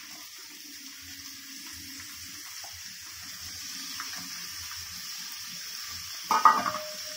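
Freshly added chopped onions frying in hot gingelly oil in a kadai, a steady sizzling hiss. About six seconds in there is one short, louder knock or scrape, the loudest moment.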